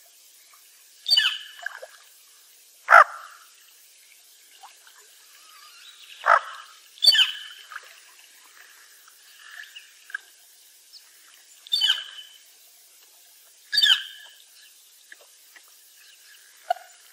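Bufflehead duck calling: about six short, sharp calls spaced one to five seconds apart, with a few fainter calls between them.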